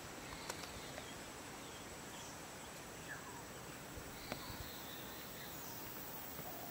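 Faint open-country ambience: a steady insect buzz with a high, thin continuous tone, a few faint bird chirps, and occasional soft clicks.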